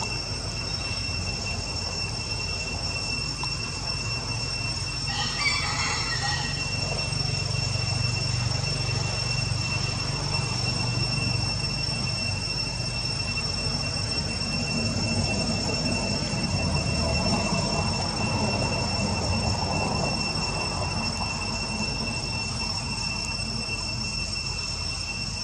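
A steady, high-pitched insect drone over a low rumble, with a short call about five seconds in.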